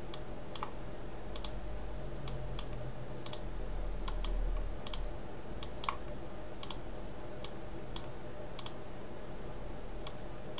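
Computer mouse left button clicked about a dozen times at uneven intervals, some clicks in quick pairs, over a steady low hum.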